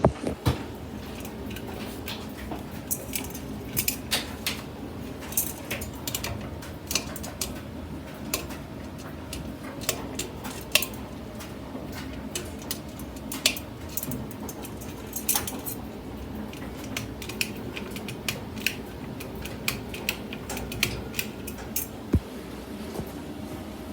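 Hampton Bay Metairie 24-inch ceiling fan running with a steady low hum, with frequent light metallic clinks and ticks at irregular moments.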